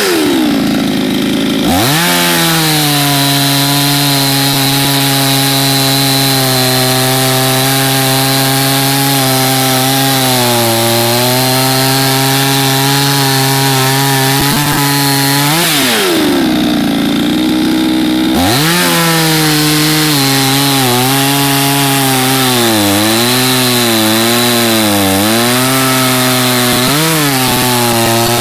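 AL-FA ALGC49 two-stroke petrol chainsaw cutting through a spruce log at high revs, its pitch sagging and wavering under load. Twice, right at the start and again a little past halfway, it drops to idle for about two seconds, then revs back up into the wood.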